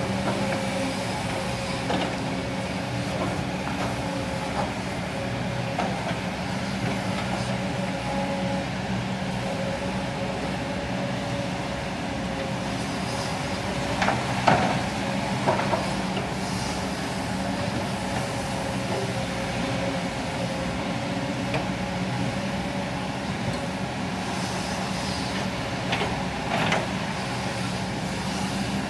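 Diesel engines of several Kobelco hydraulic excavators running steadily as they dig, a continuous low drone with a steady hum over it. A few sharp knocks come about halfway through and again near the end.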